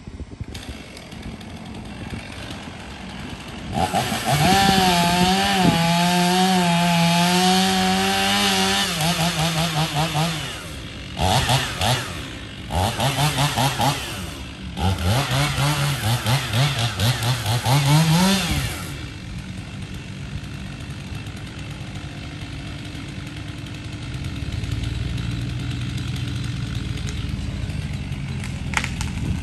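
Chainsaw revving up about four seconds in and running at full throttle as it cuts into the base of a pine trunk, its pitch sagging under the load, then a series of throttle bursts before it drops back to idle for the last ten seconds.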